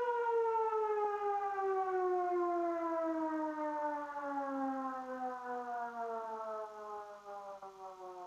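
Russian emergency alert siren winding down: one steady tone slides slowly and evenly down in pitch and fades as it goes.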